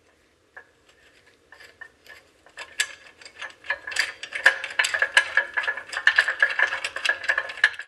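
Small steel hardware, nuts and bolts, clinking and rattling against metal with a ringing ring to each hit, a few scattered clicks at first, then a dense clatter from about four seconds in, cut off suddenly at the end.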